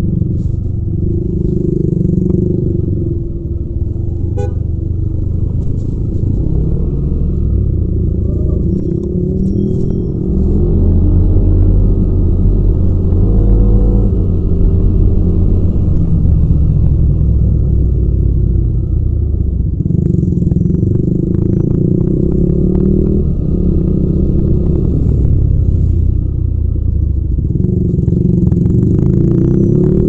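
Yamaha Aerox 155 scooter's single-cylinder, liquid-cooled 155 cc four-stroke engine running under way, heard raw without wind noise, together with road noise. The engine gets louder about a third of the way in as the scooter picks up speed, then keeps running at a steadier pace.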